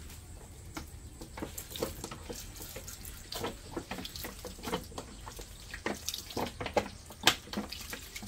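Cooking oil being poured into a pan for deep-frying, glugging out of its container in a quick, irregular series from about a second in.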